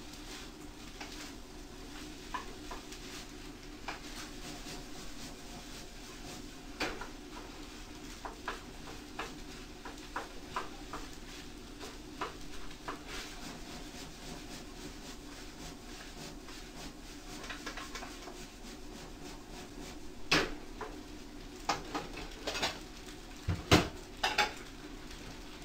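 Fried rice being stir-fried in a frying pan on a gas stove: a steady sizzle under scattered scrapes and clinks of a utensil against the pan. A few louder clanks come near the end.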